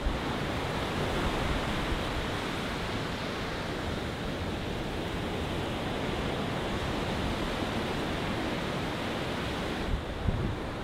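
Ocean surf breaking and washing up a sand beach: a steady rush of waves. Near the end, a few low bumps of wind on the microphone.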